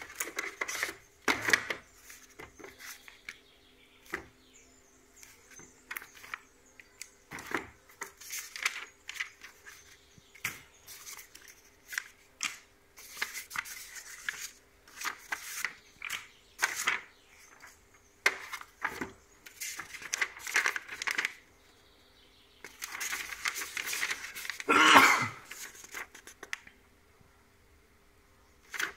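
Packaging and parts being unpacked by hand: irregular rustling, crinkling and tearing, mixed with small clicks and knocks as pieces are handled and set down. The loudest moment is a longer scraping rustle about 25 seconds in.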